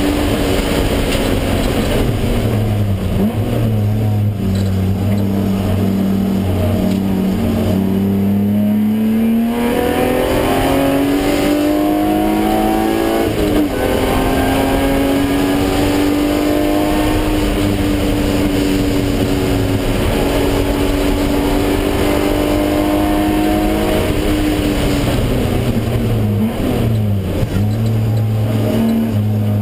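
BMW E36 M3 sedan's straight-six engine heard from inside the cabin on track, running hard. Its pitch climbs about a third of the way in, dips briefly at a gear change near the middle, holds steady, then falls with quick blips of the throttle near the end as the driver downshifts.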